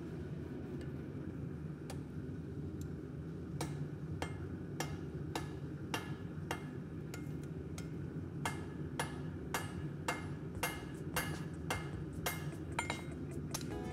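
Hand hammer striking a glowing steel bar on an anvil: a few sharp ringing blows at first, then about two a second from around four seconds in, over a steady low hum.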